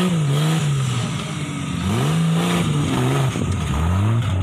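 Off-road buggy's engine revving hard in repeated surges, its pitch climbing, holding and dropping several times as the driver works the throttle on loose dirt.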